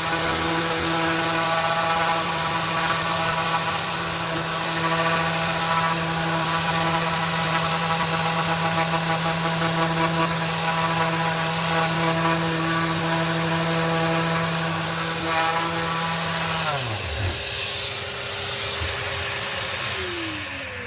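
MAXXT electric random-orbit sander running steadily on a hardwood board with a hiss of abrasive on wood, during the final 220-grit pass. About 17 s in it is switched off and its motor winds down, its pitch falling away over the last few seconds.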